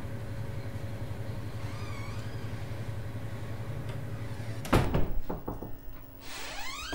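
Steady low room hum, then about two-thirds of the way in a wooden door bangs with a quick run of knocks and rattles, followed near the end by a rising squeak as a door moves.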